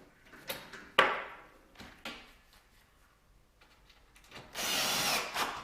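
Sheet metal pieces being handled on the bench: a sharp knock about a second in, a few lighter knocks, then a scraping rub of metal lasting under a second near the end.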